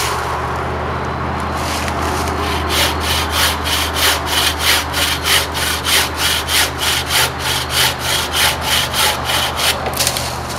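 Wooden-frame bucksaw cutting through a dry hardwood branch. It makes quick, even back-and-forth strokes, about three a second, which start a couple of seconds in and stop just before the end.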